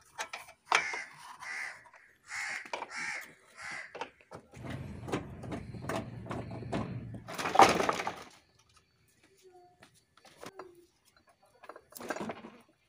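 Hands working a car's plastic front bumper and grille loose: short scrapes, clicks and rattles of plastic against metal, with a screwdriver in the fixings. The loudest rattle comes about eight seconds in, and the last few seconds are mostly quiet.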